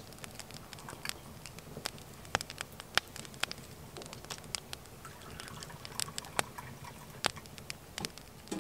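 Wood fire crackling, with irregular sharp pops and ticks a few times a second over a low, steady background.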